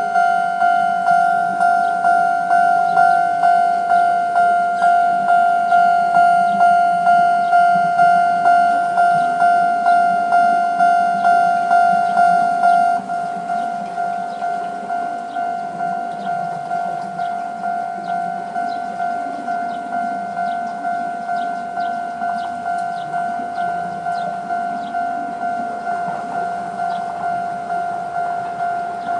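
Japanese railway level-crossing warning bell of the older electronic type, sounding its standard alarm. It rings as a fast, even series of bright ding strokes on one steady pitch, and drops suddenly in loudness about 13 seconds in.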